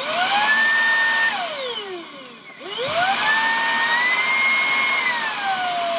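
Motor of a 265 W cordless stick vacuum switched on, whining up to speed. It is switched off and winds down with a falling whine, then switched on again and rises back up. Near the end its pitch steps down to a lower steady whine as the speed setting is changed.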